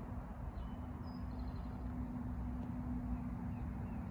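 A few faint, short, high bird chirps, about half a second and a second in and again more weakly near the end, over a steady low rumble.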